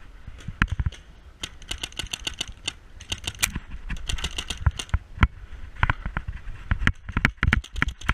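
Paintball markers firing in irregular runs of sharp pops and clicks, several a second, with a few heavier cracks among them.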